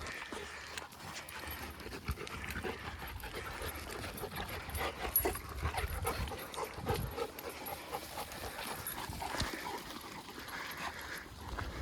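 A dog panting, with many small crunching steps and clicks throughout as it moves along the trail.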